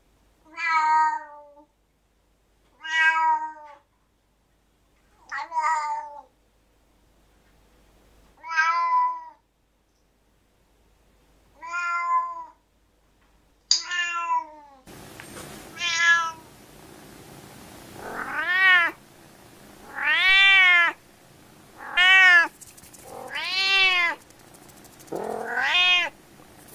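Domestic cat meowing over and over, about a dozen drawn-out meows roughly every two seconds, each rising and then falling in pitch. About halfway through, a faint background hiss comes in under the meows.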